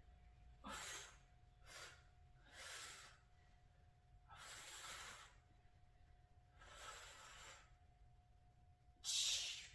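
A woman breathing hard while doing kettlebell chest presses: six audible breaths at uneven intervals, the last, near the end, the loudest.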